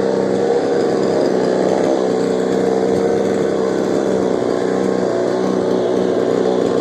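Chainsaw engine running at a steady speed, an even pitched drone.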